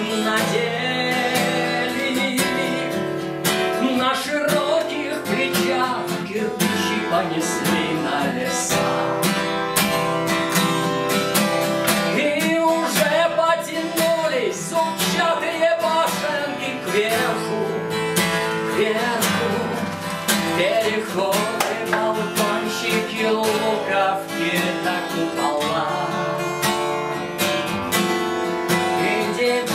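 Acoustic guitar strummed and picked in a continuous accompaniment, with a man's voice singing along in places.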